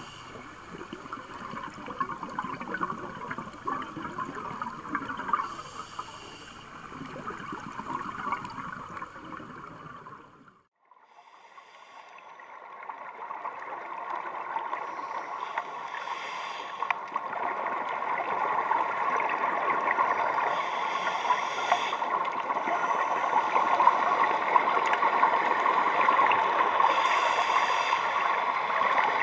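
Underwater sound of a scuba dive: a steady muffled water rush, with the gurgle of a diver's exhaled regulator bubbles coming back every five to six seconds. It cuts out briefly about ten seconds in at an edit, then returns louder.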